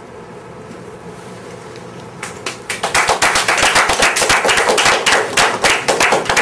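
A small audience clapping. The applause starts about two seconds in, with the separate hand claps plainly distinct, and goes on to the end.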